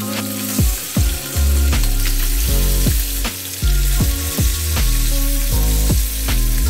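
Salmon fillets sizzling as they fry in butter in a frying pan, a steady hissing spatter. Background music with a heavy bass line plays over it.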